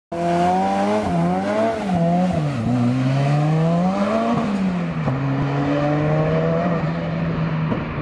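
Ford Escort RS Cosworth race car's turbocharged four-cylinder engine pulling away, its revs climbing and dropping several times in quick succession as it changes up through the gears, then holding a steady note for the last few seconds.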